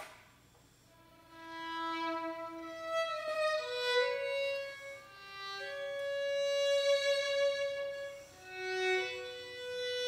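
Violin playing a slow melody of long sustained notes, entering about a second in after a brief click.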